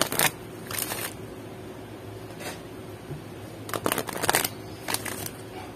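A deck of oracle cards being shuffled by hand, in a few short bursts of rapid card flicks with pauses between.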